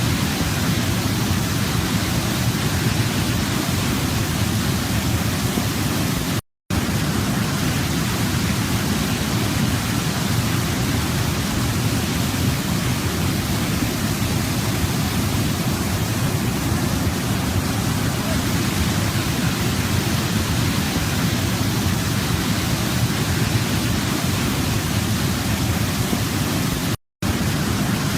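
Waterfall: a steady, full rush of falling water, heaviest in the low range, that cuts out to silence for an instant twice, about six seconds in and near the end.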